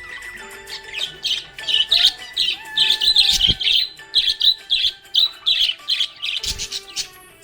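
Budgerigars chirping and squawking in a fast run of short, high calls, about three a second. Two low thumps come through, one about halfway and one near the end.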